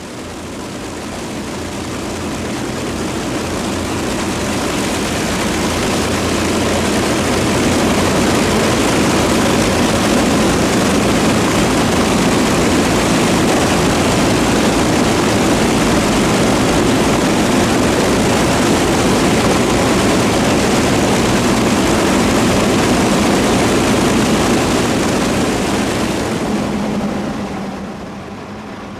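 Avro Lancaster's Rolls-Royce Merlin V12 piston engines running with propellers turning, a steady loud drone. It fades in over the first several seconds and drops in level a couple of seconds before the end.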